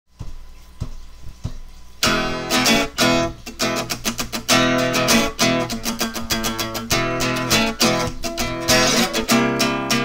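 Intro music played on strummed guitar. It starts softly with a few single plucks, then fast, full strumming comes in about two seconds in.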